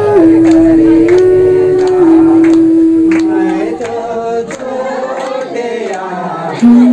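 A group of people singing together, with a clean melody of held notes stepping up and down and sharp beats about twice a second.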